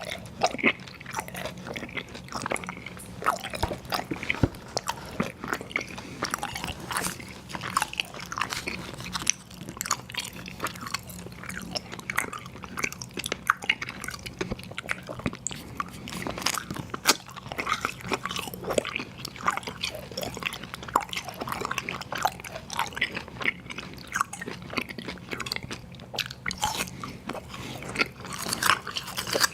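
Close-miked chewing and crunching of sour gummy worms cereal, with wet, irregular crunches and clicks going on without a break.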